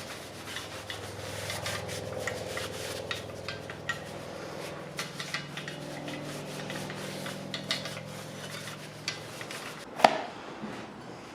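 A rag rubbing and wiping over a metal under-dash bracket coated in WD-40, a run of small scratchy rubbing clicks with a faint low hum underneath. A single sharp knock about ten seconds in.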